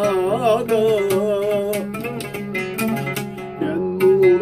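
A man singing a Turkish folk song in a long, wavering, drawn-out vocal line while accompanying himself on an oud, its plucked notes sounding steadily beneath the voice.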